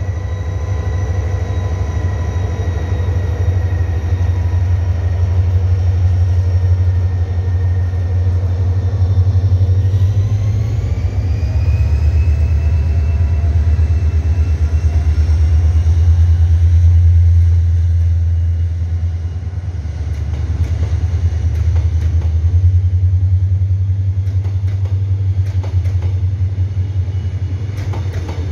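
Diesel locomotive hauling the V-train tourist train past at low speed, its engine running with a heavy low drone. The engine note rises about ten seconds in. Near the end, wheels click over the rail joints as the red coaches roll by.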